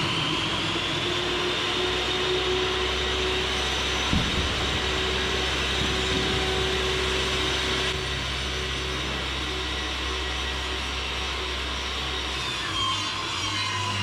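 Table saw running steadily with a constant motor hum and high whine, as a 12 mm plywood sheet is fed across it. The sound shifts near the end.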